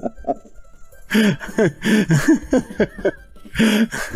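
A man laughing heartily in quick repeated bursts, with louder, breathier peaks about a second in, around two seconds and near the end.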